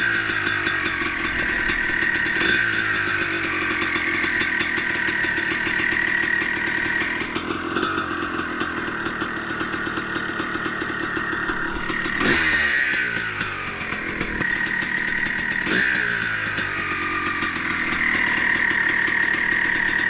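2006 KTM 300 XC-W's single-cylinder two-stroke engine idling on its first heat cycle after a rebuild with new crank, piston and rings. It is given a few short throttle blips, each dropping back to idle, the biggest about twelve seconds in.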